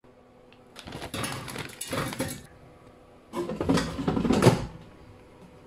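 Two bursts of rustling and clattering, one about a second in and a louder one around three and a half seconds in, as frozen vegetarian chicken pieces are handled in their plastic bag and loaded into an air fryer.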